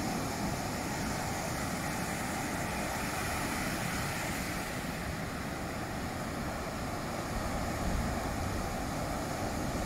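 Ocean surf washing steadily, with wind noise on the microphone.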